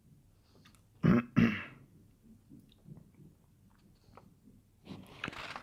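A man clearing his throat twice in quick succession, about a second in.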